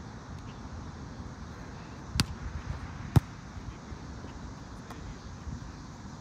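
Two sharp smacks of a volleyball being struck, about a second apart, the second one louder, over low steady background noise.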